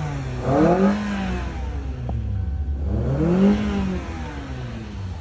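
2007 Kia Sportage's 2.0-litre four-cylinder engine running and revved twice, its pitch rising and falling each time. It runs only with the crank and cam sensors fed 12 volts through a bypass, because they were getting no supply.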